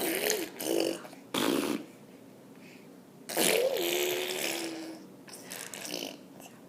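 A baby blowing raspberries: spluttering lip buzzes in several bursts, the longest about two seconds in the middle, with a little voice mixed into it.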